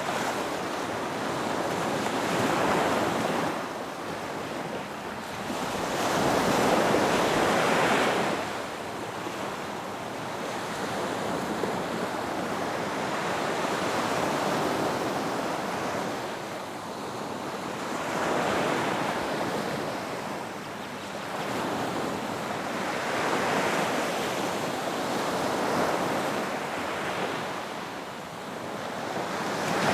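Ocean waves washing in, the surf swelling and easing every four or five seconds.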